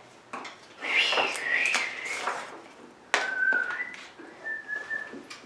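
A child whistling: first a short wavering phrase, then, after a sharp tap on the table about three seconds in, a steadier held note that steps up and down a little.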